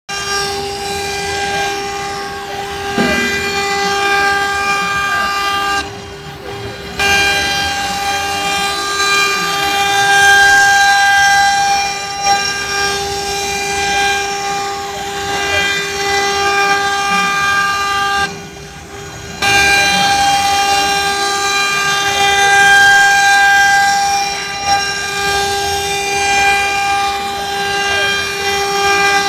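COMEID CNC router with six spindles, its spindles whining at a steady high pitch while the bits cut templates. The whine drops away briefly twice, about six seconds and about eighteen seconds in.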